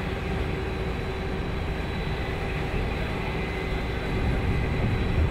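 Fire trucks' diesel engines and pumps running steadily while supplying the hose lines: a continuous low rumble with a constant hum.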